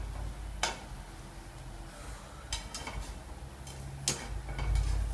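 A plastic slotted spatula and a wooden spatula clicking and scraping against a non-stick frying pan as a pancake is worked and turned: a sharp tap about half a second in, a few around two and a half seconds, and more near the end, over a low rumble.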